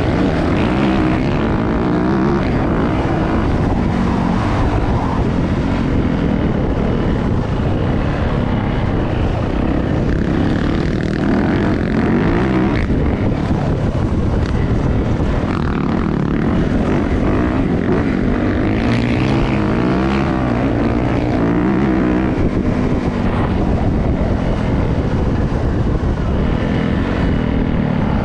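Four-stroke dirt bike engine running under way, its pitch rising and falling with the throttle in a steady, continuous drone.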